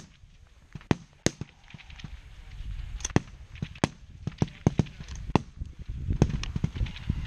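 Rifle shots going off one after another at uneven intervals along a high-power rifle firing line, about a dozen in all, some sharp and close and others fainter.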